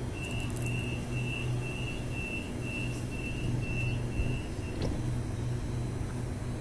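Sydney Trains Waratah double-deck electric train standing at a platform, its door-closing warning sounding as a row of about ten short, high, evenly spaced beeps while the doors shut, with a sharp click at the end. The train's steady electrical hum continues underneath.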